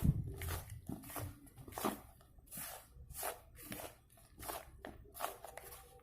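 Chicken pieces being tossed and mixed in dry flour: irregular soft rustling, scraping strokes, about one or two a second, with a sharper knock at the very start.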